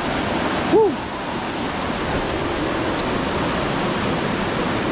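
Steady rush of a waterfall's falling water, with one short "woo" shout from a person a little under a second in.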